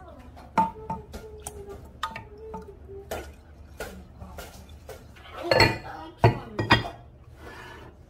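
Wooden spoon stirring soaked rice and water in a black stone pot (dolsot), with small clicks and knocks of the spoon against the pot. A louder scraping swirl about five and a half seconds in is followed by a few sharp knocks.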